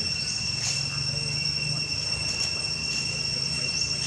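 Insects droning in a steady, high-pitched chorus, with a few short rising chirps over it and a low hum underneath.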